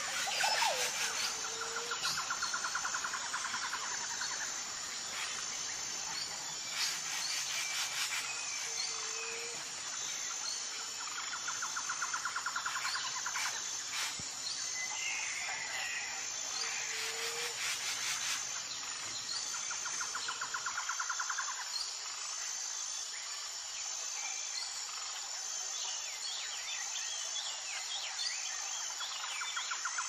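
Outdoor nature ambience: a steady high-pitched insect drone, with a bird's rapid trill recurring every few seconds and a few short low chirps.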